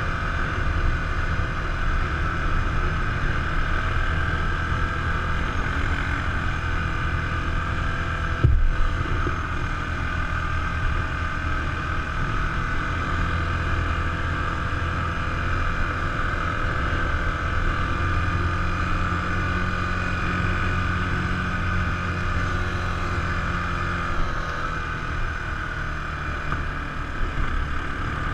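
ATV engine running steadily while riding, its pitch drifting a little. There is one sharp knock about a third of the way through.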